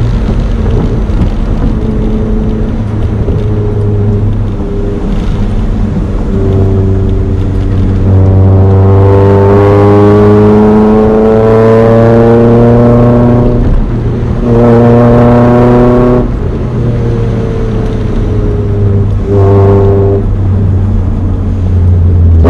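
Honda Prelude's swapped-in H23 2.3-litre four-cylinder engine under way, pulling through the revs: the pitch climbs steadily from about eight seconds in, drops at a gear change, climbs briefly again, then falls back to a steady drone.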